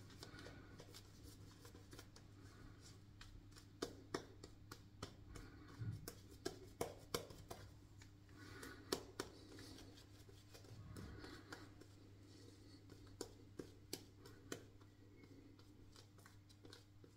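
Faint intermittent swishing of a synthetic shaving brush working lather on the face, with many light scattered clicks and soft crackles in a quiet tiled room.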